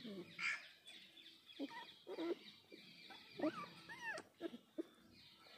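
Young puppy whimpering in short, high squeaks, several in a row.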